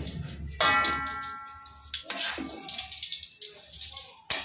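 A metal utensil stirring vegetables and sausage in a pan: scraping and clanks against the pan. One strike about half a second in rings on for over a second.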